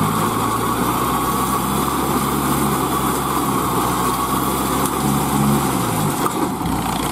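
Kubota ZL3001 tractor's four-cylinder diesel engine running steadily under load while powering a straw-rolling baler. The engine note dips briefly near the end.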